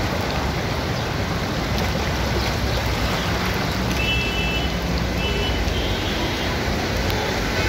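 Floodwater rushing across a road, a steady loud rush of water. Faint high-pitched tones come twice in the second half.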